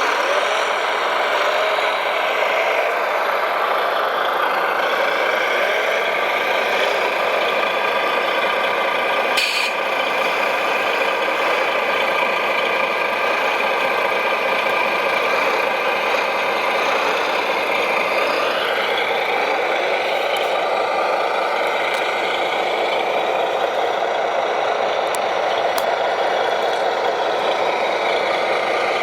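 Radio-controlled model construction machines working: a steady whirr and rattle of small motors and gearing. A sharp click about nine seconds in, and a rising whine about eighteen seconds in.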